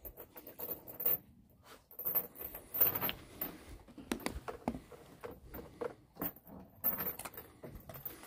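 A dog's metal tie-out chain rattling and dragging on a wooden deck as the dog moves about, in irregular bursts of jingling and clinking.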